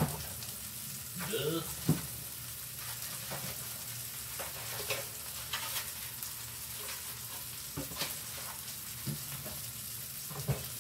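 Meat patties sizzling in a frying pan, a steady hiss with scattered small crackles. Two sharp knocks stand out, one at the very start and one about two seconds in.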